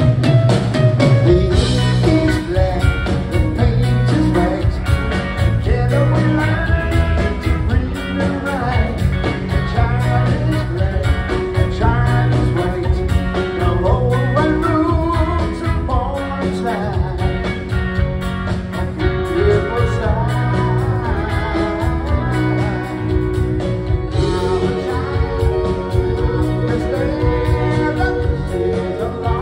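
Live rock band playing through a PA, heard from the audience: male lead singing over electric guitars, bass, keyboards and a steady drum beat, with the cymbals getting brighter near the end.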